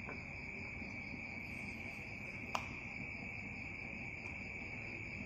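Steady high-pitched trill of crickets, with one sharp click about two and a half seconds in from kitchen scissors snipping a soaked dried mushroom.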